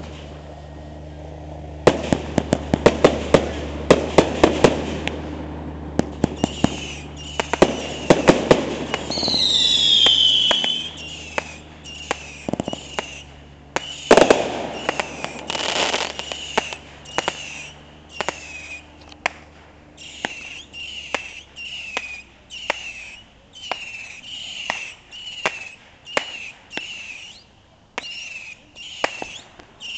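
Consumer fireworks going off: a string of sharp bangs and crackles, with a long falling whistle about ten seconds in. Through the second half comes a steady run of short falling whistles, more than one a second.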